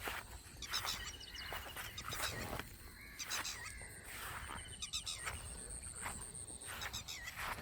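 Birds chirping and calling repeatedly, with a thin high steady buzz held for a few seconds in the middle, over a low rumble.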